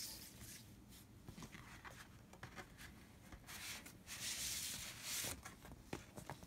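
Paper and card rustling and tapping as an LP's gatefold sleeve and inner sleeve are handled, with a longer sliding swish from about three and a half to five seconds in as the record is drawn out of its paper inner sleeve.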